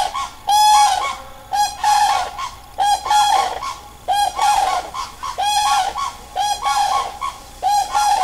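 Cranes calling very loudly: a long, unbroken run of repeated trumpeting calls, one or two a second.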